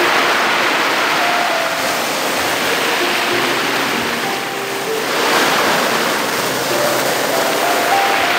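Sea waves washing in and out over a beach of small round black pebbles (mongdol), the water hissing and rattling through the stones. The surf swells twice, at the start and again about five seconds in.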